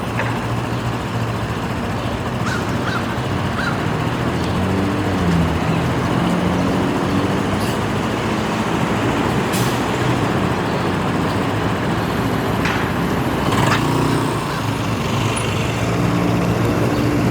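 MTA New York City Transit bus engine running, rising in pitch about five seconds in, with a couple of short air-brake hisses. A bird calls a few times about three seconds in.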